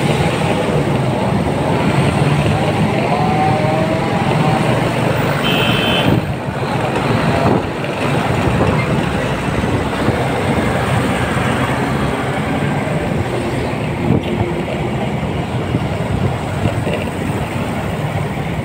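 Motorcycle riding slowly through dense street traffic: a steady mix of engine and road noise from the bike and the cars, motorbikes and truck around it. A brief high beep sounds about five and a half seconds in.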